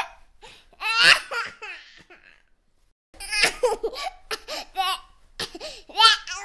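A baby laughing in bursts: a loud laugh about a second in, a run of short laughs from about three to five seconds, and another loud laugh near the end, with a brief quiet gap in the middle.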